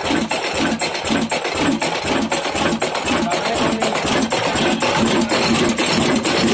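Old Ruston Hornsby stationary diesel engine running steadily under load, with a rapid, even beat of knocks from its firing.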